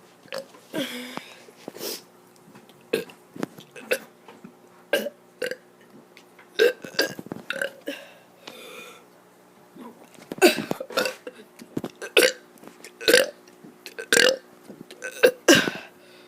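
A child burping on purpose: a long string of short, sharp burps, coming thicker in the second half.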